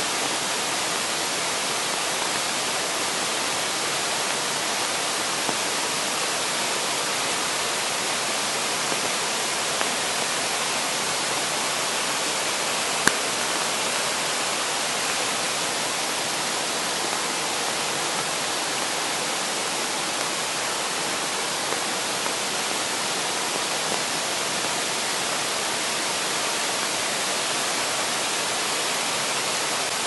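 Swollen mountain stream rushing over boulders in white water, a steady hiss of water. One brief click about halfway through.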